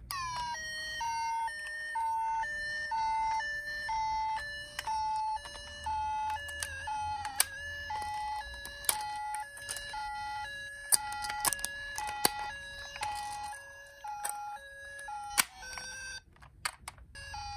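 Toy ambulance's electronic siren playing a two-tone high-low 'pee-po' call, about one high-low pair a second, starting with a short upward slide and cutting off about sixteen seconds in. Sharp clicks sound now and then.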